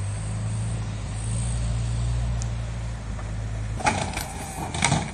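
Skateboard wheels rolling on a large wooden halfpipe, a steady low rumble that swells and then stops about four seconds in. Then come a few sharp clacks and knocks of the board on the ramp.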